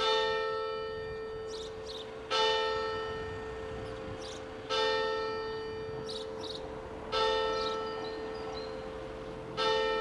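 A large church bell striking slow, even strokes, five in all, about two and a half seconds apart. Each stroke rings on and dies away slowly before the next.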